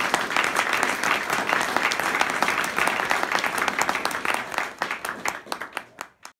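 Audience applauding, a dense patter of many hands clapping that thins out over the last second or so and then cuts off abruptly.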